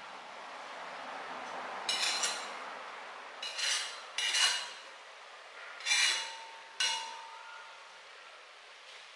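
A stainless steel spoon scraping and clinking against the inside of a cast iron Dutch oven as cooked rice is stirred and scooped. There are five sharp scrapes, and the last two are followed by a brief metallic ring.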